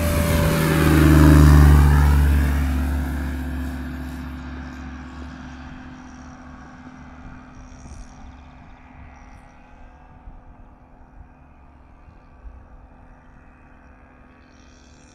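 Single-engine light propeller plane at takeoff power passing close by, its engine and propeller drone loudest about a second and a half in and dropping in pitch as it goes past. It then fades steadily as the plane climbs away.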